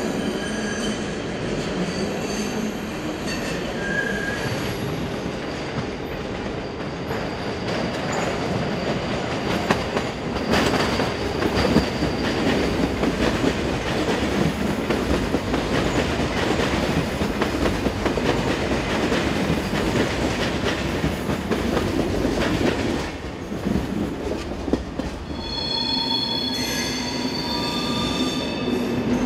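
Swiss double-deck IC2000 passenger train rolling over the points, a steady rumble of wheels with some clatter. After a brief dip near the end, another train's wheels squeal in thin high tones on curving track.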